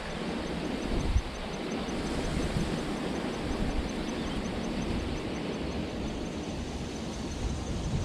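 Wind buffeting an outdoor microphone: a steady low rumble. A faint, fast, even ticking sounds high in the background.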